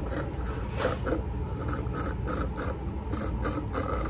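A person drinking straight from a lidless paper cup: a run of short rubbing, scraping noises, several a second, over a low steady hum.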